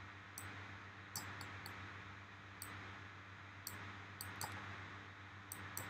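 Faint, scattered clicks of a computer mouse and keyboard, about ten over a few seconds, over a steady low hum.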